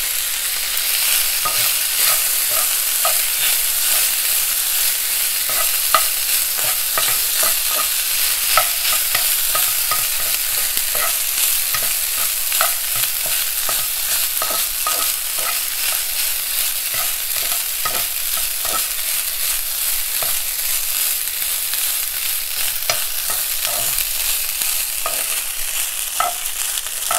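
Boiled kinche (cracked grain) frying in oil in a non-stick pan, sizzling steadily while a spoon stirs and scrapes through it, with frequent small scraping ticks against the pan.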